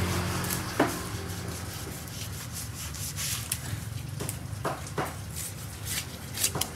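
Knife blade scraping the scales off a large milkfish on a wooden chopping block, a series of short, irregular scraping strokes. A steady low hum runs underneath.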